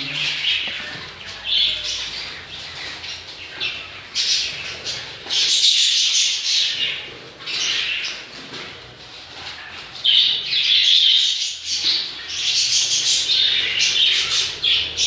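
A group of caged pet birds chirping and squawking together, in repeated bursts of high-pitched chatter. The loudest bursts come about six seconds in and again in the last third.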